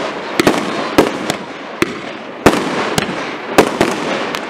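Aerial firework shells bursting in a display: about ten sharp bangs at uneven spacing, some in quick pairs, over a continuous hiss and crackle.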